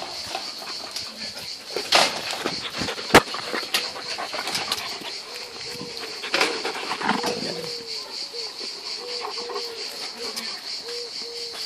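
Dogs moving about at a wire fence: a few sharp knocks in the first half, then from about halfway a dog whining in short repeated whines, roughly two a second. Under it all runs a steady high-pitched buzz.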